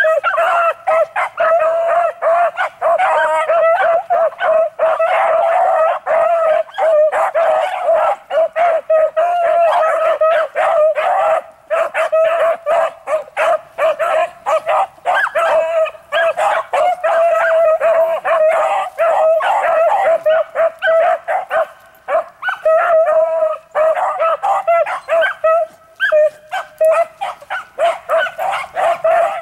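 A pack of beagles baying and yelping almost without pause, several voices overlapping, as they work a rabbit's scent. The chorus drops off briefly a few times.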